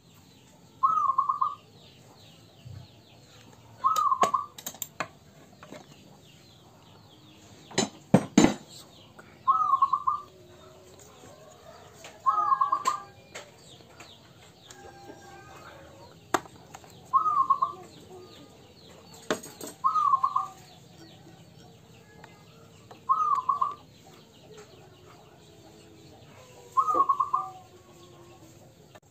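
Zebra dove (perkutut) cooing: eight short, wavering call phrases about three seconds apart. A couple of sharp knocks come about eight seconds in.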